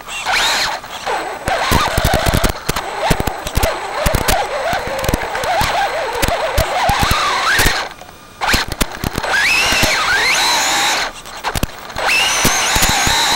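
Traxxas 4x4 Slash VXL RC truck's brushless motor and drivetrain whining as the throttle is worked in bursts, the pitch rising and falling, with two brief lulls late on and a steadier high whine near the end. Scattered sharp clicks from the chassis and tyres run through it.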